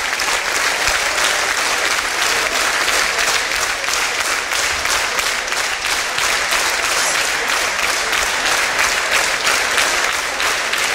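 Audience applauding, the clapping falling into a steady rhythmic beat.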